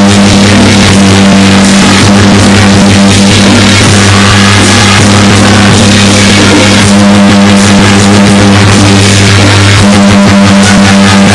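Loud music played over a loudspeaker, with a steady low drone underneath.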